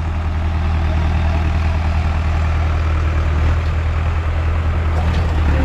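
Tractor diesel engines running with a steady low drone that grows a little louder over the first couple of seconds.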